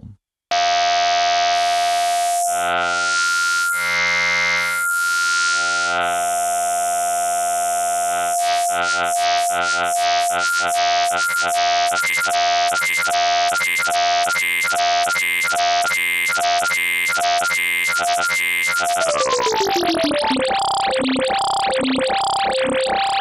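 Synthstrom Deluge wavetable synth voice holding one sustained note. Its tone colour changes in steps as the wavetable position is moved. From about eight seconds in it wobbles about twice a second as LFO 2 sweeps the wave position, and near the end the wobble speeds up.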